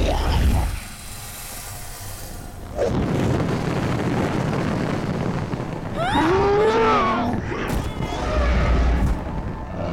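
Horror-film sound design: a deep boom fades out under a second in, then a loud rush of burning flames comes in about three seconds in. About six seconds in, a shrill wavering shriek rises over it.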